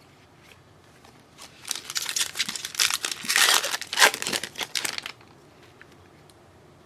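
Trading card pack wrapper being torn open and crinkled, a dense rustling that starts about a second and a half in and stops about five seconds in.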